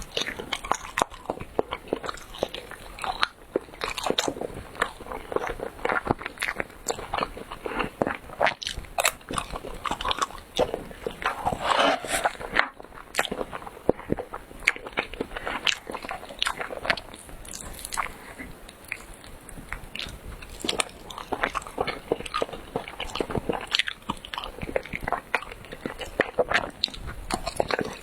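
Close-miked mouth sounds of chewing chewy rice cake: wet, sticky smacks and clicks, irregular and continuous.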